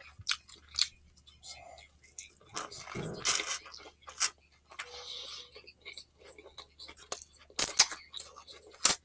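Close-miked eating of a cheese steak sub: wet chewing and mouth clicks, a bite into the soft roll about three seconds in, and two sharp loud smacks near the end.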